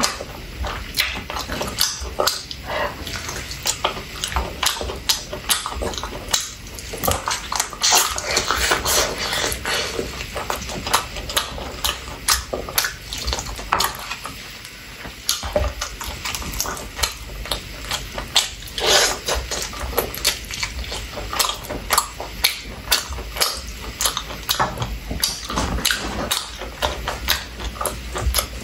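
Close-miked chewing of chicken wings, with many irregular wet clicks and smacks from the mouth and lips.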